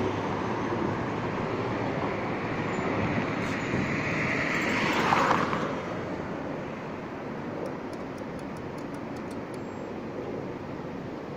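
City street traffic, with one vehicle passing louder about halfway through before the noise settles to a steadier, quieter traffic sound.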